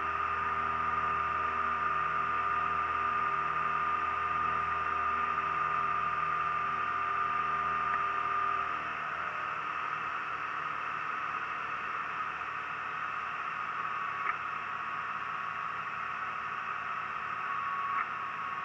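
Piper Turbo Aztec's twin turbocharged six-cylinder engines and propellers heard from inside the cabin, a steady drone with a high whine over it. About halfway through the sound drops and quietens as power comes back on the approach, the whine going on fainter and a little lower, with a couple of light clicks near the end.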